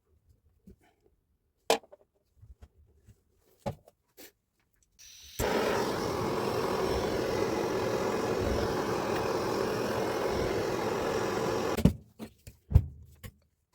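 An electric power tool runs steadily for about six seconds and then stops abruptly. Scattered clicks and knocks of handling come before and after it.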